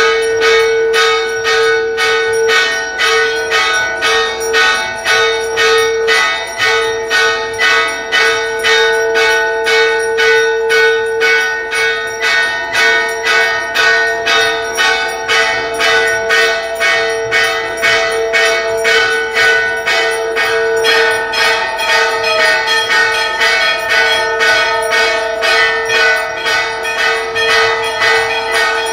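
Temple bells rung rapidly and without pause during an aarti: quick, even strikes over a sustained, ringing metallic tone.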